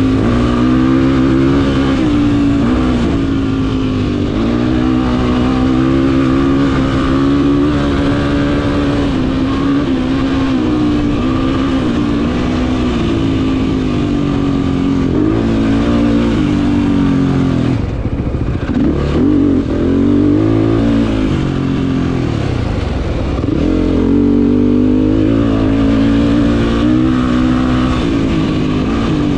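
Race quad's engine running hard through a desert race lap, revs rising and falling with the throttle. About two-thirds through, the revs drop and climb again a few times in quick succession before settling back.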